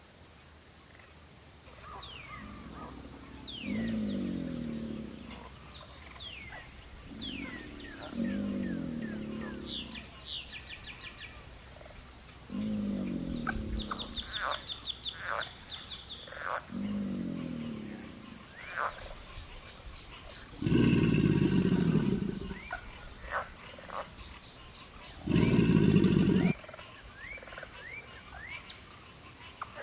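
Crickets chirping in a steady, high, continuous chorus. A low animal call that falls in pitch repeats about every four seconds over it, the last two louder and rougher, while birds give short falling chirps.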